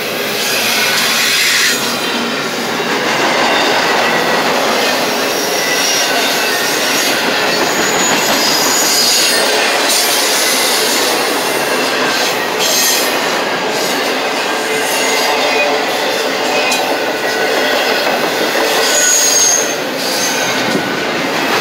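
Double-stack intermodal freight cars rolling past close by: the steady noise of steel wheels running on the rails, with a few brief high-pitched wheel squeals.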